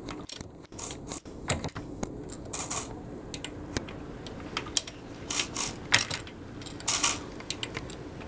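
Lee Loadmaster progressive reloading press being cycled by hand: irregular metal clicks and clinks from the ram stroking and the press mechanism working, several a second at times.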